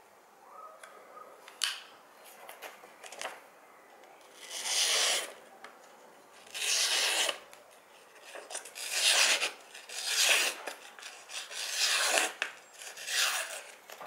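Marttiini Lynx folding knife's stainless steel blade slicing through a sheet of paper in six long strokes, after a few sharp clicks in the first seconds as the knife is handled.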